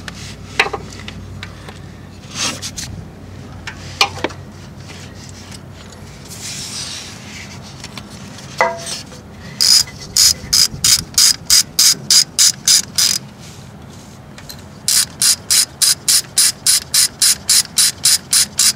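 Ratchet wrench clicking as it backs out a 10 mm bolt: two long runs of rapid, even clicks, about four a second, with a few scattered knocks of the tool on the engine before them.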